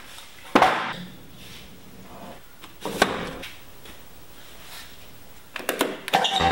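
Wood boards handled in a workshop: a sharp wooden knock about half a second in, another about three seconds in, and quieter shuffling and scraping between. Near the end, a quick run of clicks as a machine's push-button switch is pressed.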